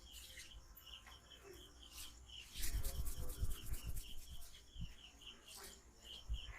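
Hands rubbing and patting a head and neck during an oil massage: a cluster of rubbing and slapping sounds for about a second and a half in the middle. A high chirp repeats about three times a second in the background throughout.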